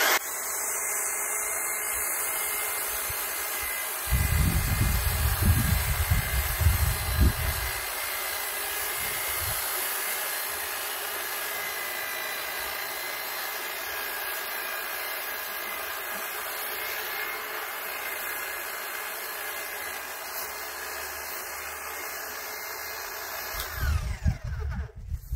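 Titan corded electric long-reach hedge trimmer running steadily as it cuts the top of a hedge, switching on at the start and winding down about 24 seconds in. A low rumble comes through loudest between about four and eight seconds in.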